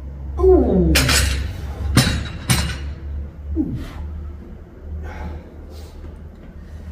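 Metal dumbbells set down onto a rubber gym floor: three sharp clanks, about a second in and twice more around two seconds in. A man's falling groan comes just before the first clank, and a shorter one a second after the last.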